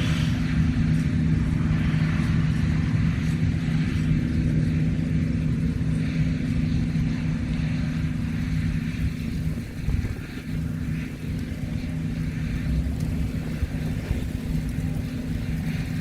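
John Deere combine's diesel engine running steadily under harvesting load, a low even drone.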